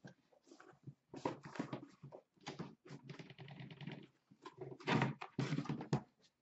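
Cardboard shipping case and shrink-wrapped boxes of trading cards being handled: irregular rustling, scraping and light knocks as boxes are slid out of the case and set down on a stack, louder near the end.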